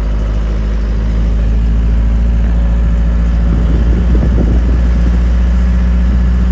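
A car's engine and road noise heard from inside the cabin while driving, a steady low drone.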